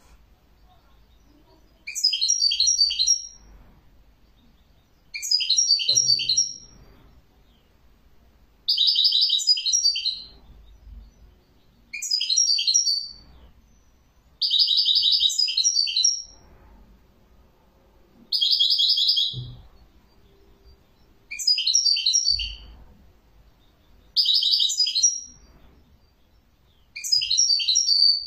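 European goldfinch singing: nine short phrases of bright, high twittering song about three seconds apart, some of them holding a dense buzzing trill.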